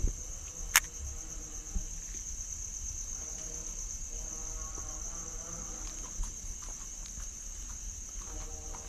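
Crickets chirring steadily in a continuous high-pitched night chorus, with a sharp click about a second in.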